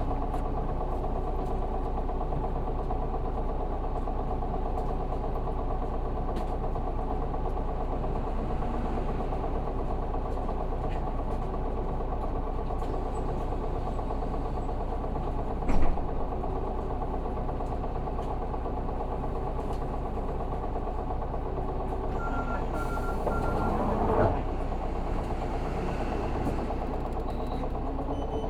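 Isuzu 6HK1 diesel engine of a city bus idling steadily, heard from inside the passenger cabin. A short knock sounds about halfway through, and a brief run of high beeps comes near the end.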